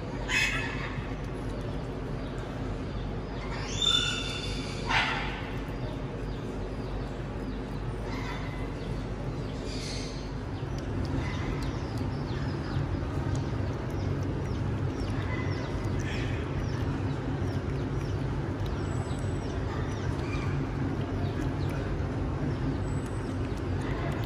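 A few short animal calls, loudest about four to five seconds in, over a steady low hum that grows a little louder about halfway through.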